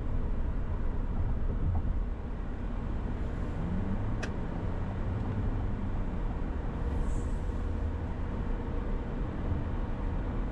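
Steady road and engine noise of a car cruising on a freeway, heard from inside the cabin, with a single short click about four seconds in.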